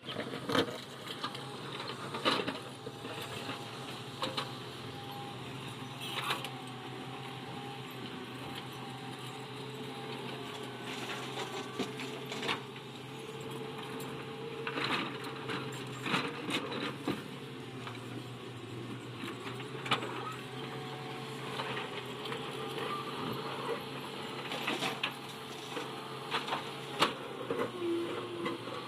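Excavator's diesel engine running steadily, its pitch wavering slightly, with scattered sharp knocks and clanks from the working machine.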